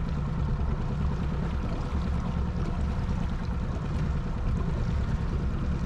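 Boat motor running steadily at slow trolling speed, a constant low rumble.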